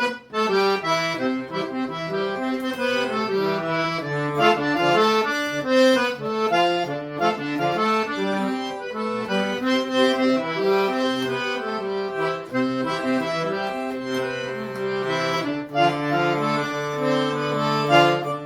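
Accordion playing an instrumental melody between sung verses, the notes changing quickly over bass notes. A low bass note is held for the last few seconds.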